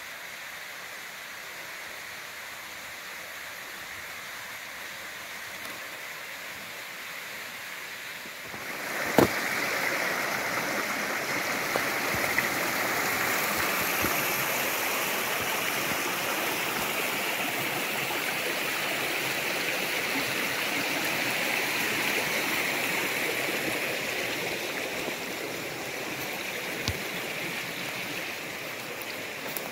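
Stream rushing over rocks: a steady water noise, fainter at first, then suddenly much louder about eight seconds in and staying loud, with one sharp knock just after the rise.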